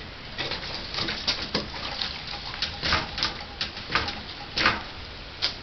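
About a dozen scattered light clicks and knocks, irregularly spaced, from the friction-drive motor and bike parts being handled and fitted together on the frame.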